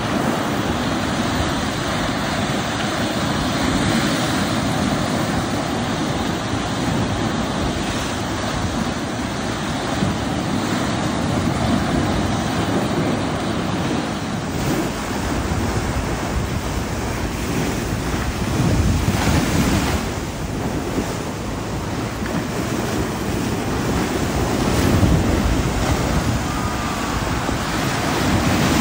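Steady rushing of surf and wind, with wind buffeting the microphone; it swells a little louder a few times.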